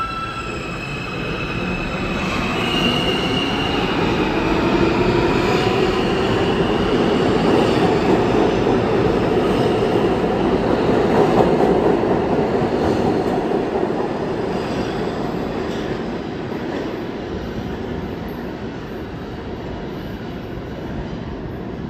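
R160 subway train accelerating out of the station. Its traction motors whine in rising tones as it gets moving, then the cars rumble past, loudest about halfway through and fading toward the end.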